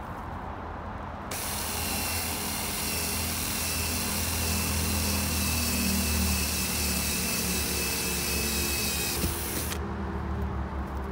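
Cordless drill running steadily for about eight seconds, boring drainage holes through the plastic wall of an old water butt. It starts about a second in and stops near the end.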